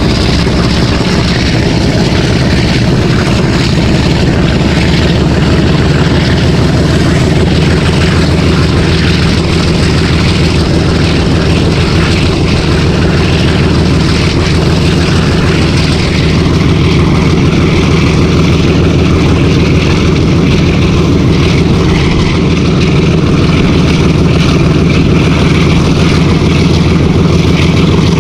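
Hitachi PHA-20 diesel locomotive's engine running and chugging steadily, a loud, fast pulsing beat over a deep hum.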